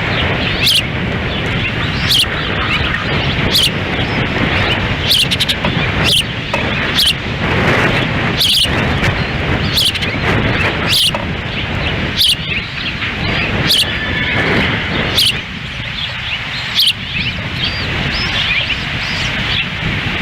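Ospreys giving repeated short, high chirps, about one every second or so, over steady wind rumbling on the nest-cam microphone.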